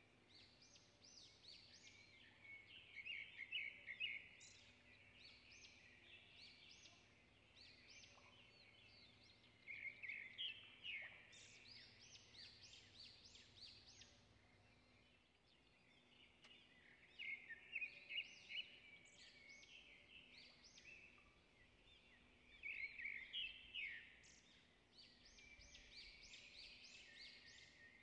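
Faint birdsong: quick high chirping calls, rising into louder clusters about every six to seven seconds.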